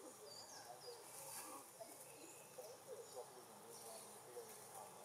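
Quiet outdoor background with a few faint, short high chirps in the first second and scattered faint calls or distant voices.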